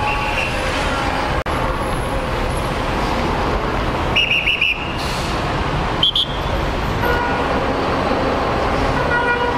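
Heavy city street traffic: a steady rumble of engines and road noise, with a few short high-pitched toots, briefly at the start, about four seconds in and again around six seconds.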